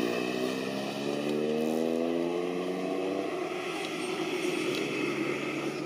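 Airbus A330 freighter's twin jet engines passing close on landing approach: an engine whine that slides down in pitch over the first three seconds as the aircraft goes by, over a steady rush of jet noise.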